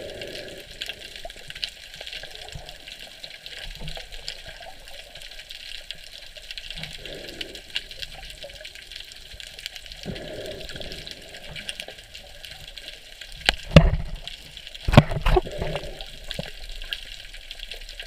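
Muffled underwater sound through a GoPro's waterproof housing: a steady hiss of moving water with soft low swells. Around fourteen and fifteen seconds in, a few loud low thumps and knocks.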